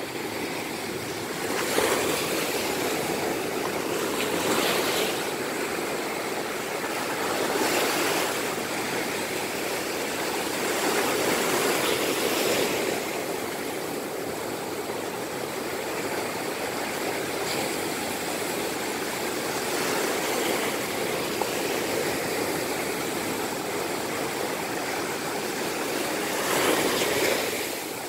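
Ocean surf breaking on a sandy beach: a steady wash of waves that swells every few seconds as each wave breaks and rushes up the shore.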